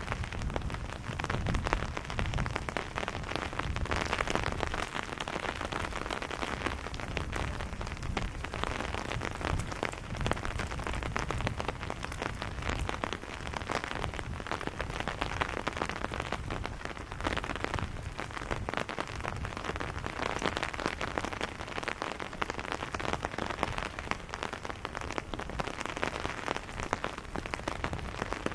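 Steady rain, a dense close patter of drops, with a low rumble underneath.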